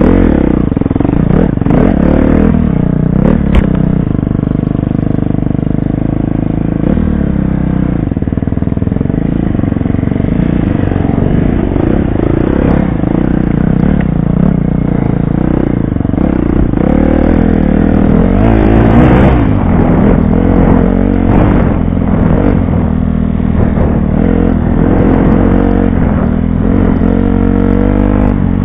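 Dirt bike engine being ridden on a rough trail, its pitch rising and falling with the throttle, with clatter from the bike and a sharp knock about three and a half seconds in.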